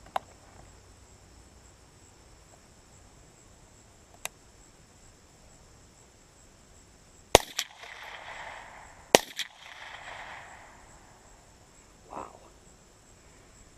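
.22 Long Rifle gun fired twice, about two seconds apart, with each sharp crack followed by a rolling echo. Two faint clicks come before the shots.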